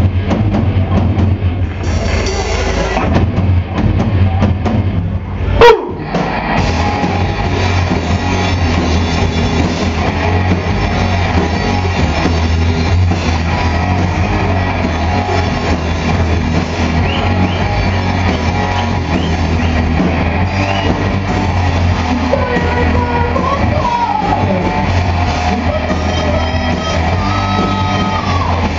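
Live hard rock band playing loud: distorted electric guitars, bass and drum kit, heavy in the low end, with gliding lead guitar notes in the second half. A single sudden loud bang cuts through about six seconds in.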